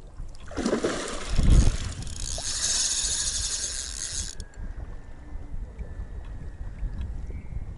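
Spinning reel's drag buzzing as line is pulled out by a hooked fish on its run. The buzz starts about half a second in and cuts off suddenly after about four seconds, over low wind rumble on the microphone.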